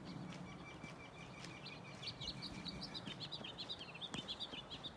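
Songbirds singing: a steady high whistled note, then a quick run of short high chirps from about a second and a half in.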